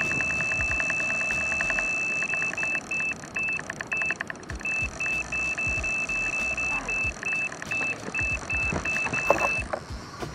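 Electronic carp bite alarm signalling a run: a continuous high tone for the first couple of seconds, then fast repeated beeps as the fish keeps taking line, over a rapid ticking. Near the end comes a knock and the beeping stops as the rod is lifted off the alarm.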